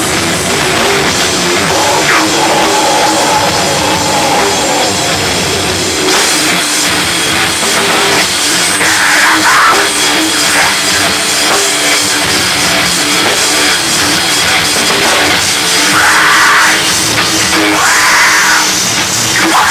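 Metal band playing live: distorted electric guitars, bass and a drum kit, loud and dense throughout, with harsh vocals coming in short shouted bursts a few times in the second half.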